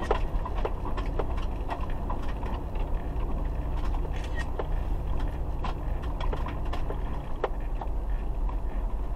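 Inside a car's cabin while driving slowly: a steady low rumble of engine and tyres, with light, irregular clicks or knocks about once a second.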